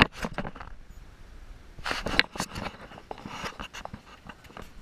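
Handling noise from a hand-held action camera: irregular clicks, knocks and rustling as it is moved and gripped, loudest right at the start and about two seconds in.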